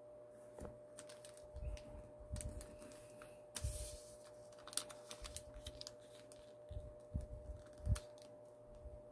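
A sheet of origami paper being handled and folded by hand: scattered light crinkles and clicks as it is creased and adjusted, with a brief louder rustle about three and a half seconds in. A faint steady hum runs underneath.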